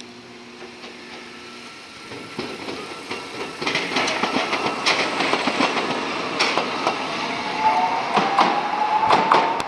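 Toei 8800 series tram car approaching and passing close by, growing louder, its wheels clicking sharply over the rail joints. Near the end a rising whine comes in.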